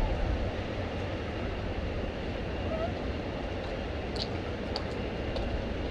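Steady airport background noise: a low rumble with an even hiss, without a clear engine note, and a few faint short high chirps about four to five seconds in.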